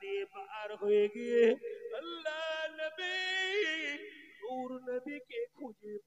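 A Bengali waz preacher's male voice singing into a microphone in a drawn-out, melismatic chant style. The phrases are long held notes with quick wavering ornaments, separated by short pauses for breath.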